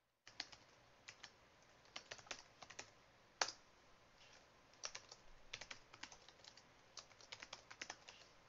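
Typing on a computer keyboard: irregular runs of soft key clicks as a file name and then a password, twice, are typed in. One louder click stands out about three and a half seconds in.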